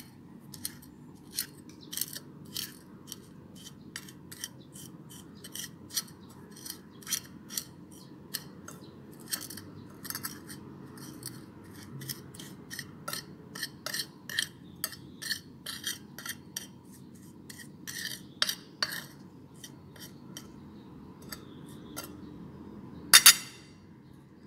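Metal spoon clinking and scraping against a glass plate as it mashes small red chilies into seasoning powder: an irregular run of short clinks, with a louder double clink near the end.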